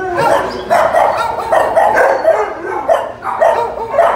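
Dogs barking repeatedly in quick succession, about two to three barks a second.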